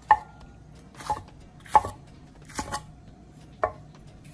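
Chef's knife chopping a Scotch bonnet pepper on a wooden cutting board: five separate sharp knocks, roughly one a second.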